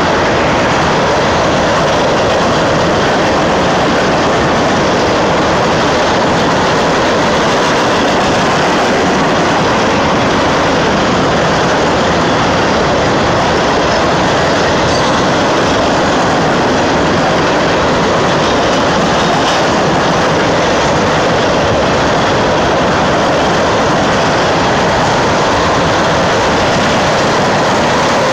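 A long string of railroad tank cars rolling past at speed: a steady, loud wheel-on-rail noise that holds without a break.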